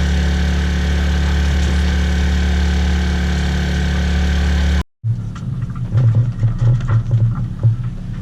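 A small engine running steadily with an even hum. It cuts off abruptly about five seconds in, and a second stretch of engine noise follows with an uneven, throbbing low note.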